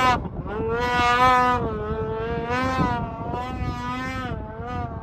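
Snowmobile engine revving hard, its pitch rising and falling as the throttle is worked, loudest about a second in.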